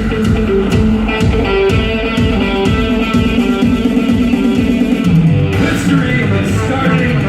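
Instrumental band music with no vocals: electric guitar over bass and drums keeping a steady beat, the texture changing about five and a half seconds in.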